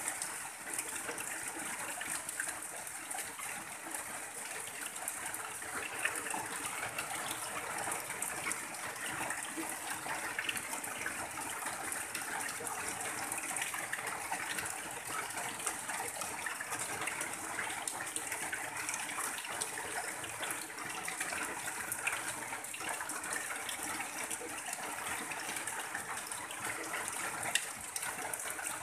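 Heavy rain falling steadily, with rainwater running off the edge of a tin roof in a pouring stream, a dense patter throughout.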